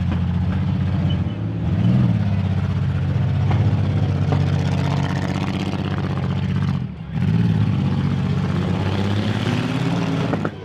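Demolition derby cars' engines running hard and revving, the engine note swelling and falling as the drivers push. It dips briefly about seven seconds in and then picks up again. A couple of sharp knocks of cars hitting come through the engine noise.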